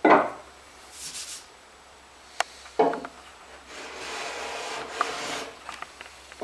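Hand plane cutting shavings from a live-edge wooden slab in several strokes: a short stroke at the start, a sharp click about two and a half seconds in, another short stroke just after, then a longer stroke lasting nearly two seconds.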